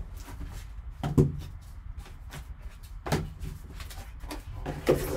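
Card box and clear plastic card case being handled by gloved hands: light rustling with a few knocks and thuds, at about one, three and five seconds in.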